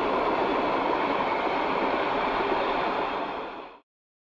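A passenger train rolling past, its coaches giving a steady rushing noise that fades and cuts to silence near the end.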